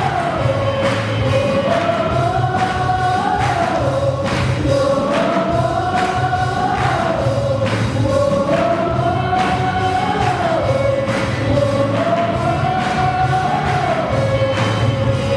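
A group of voices singing a worship song in unison over a steady instrumental accompaniment with a regular beat.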